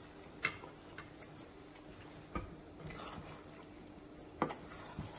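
Wooden spatula knocking on the pan a few times while sauce-coated penne is stirred, with a faint steady hum underneath.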